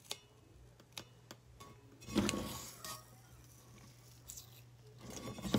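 Painter's tape being handled and applied to a tumbler: a few light clicks and taps, then a short rasp of tape peeling off the roll about two seconds in and another near the end.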